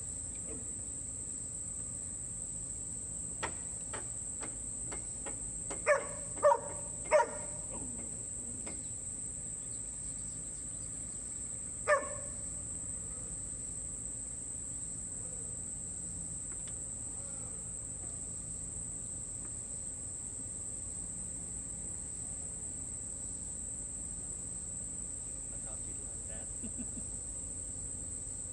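Steady high-pitched drone of an insect chorus, over which a dog gives three quick barks about six seconds in and one more bark about twelve seconds in.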